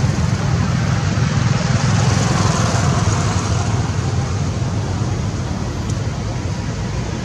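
Steady low rumble of outdoor background noise with a faint hiss above it, no distinct event standing out.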